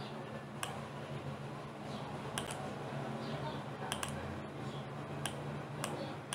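Computer mouse clicking about seven times at irregular intervals, some clicks in quick pairs like a button pressed and released, over a steady low hum.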